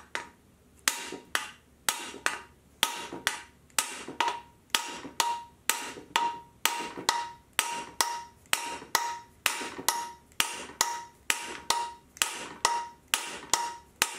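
A hammer striking a steel driver bar, driving a part into the bore at the end of an AMC 20 axle housing tube. The metal taps come steadily, about two a second, each with a short ring.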